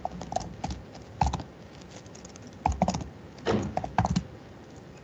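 Typing on a computer keyboard: scattered key clicks and a few short runs of keystrokes with pauses between them.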